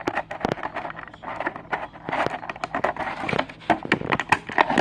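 Handling noise close to the microphone: a rapid, irregular string of plastic clicks and rustles as things are picked up and moved.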